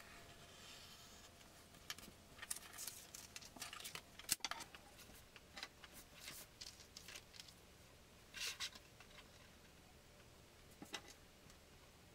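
Faint paper-crafting sounds: a craft knife drawn along a ruler through a sheet of paper, then scattered rustles, taps and one sharp click as the sheet is handled and folded.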